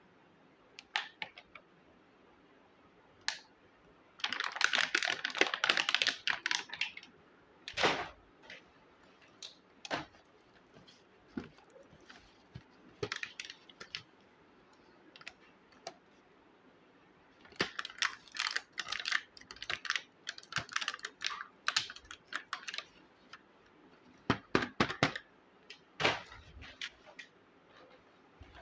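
Small plastic miniature toy kitchen pieces being handled: scattered light clicks and taps, with a rustling stretch about four seconds in and clusters of quick clicks later.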